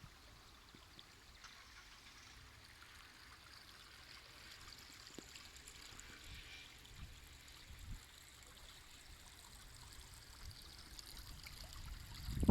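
Faint steady outdoor hiss with a light low rumble of wind on the microphone.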